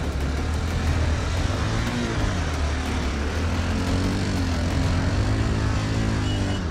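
A vehicle engine running steadily, its pitch wavering gently up and down as the revs shift.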